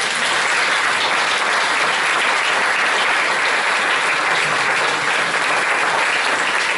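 An audience applauding, a dense and steady clapping.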